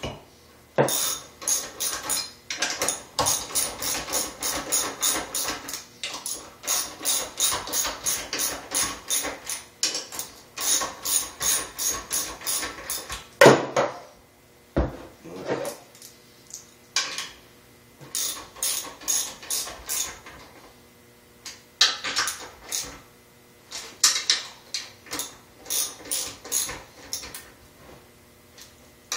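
Hand ratchet wrench clicking in runs of about four to five clicks a second as it drives in the bolts of a Torq-a-verter backing plate on a small engine, with short pauses between runs. A single louder knock about halfway through.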